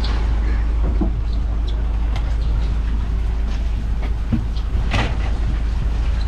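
Steady low engine rumble, with a few sharp knocks and clatters scattered through it.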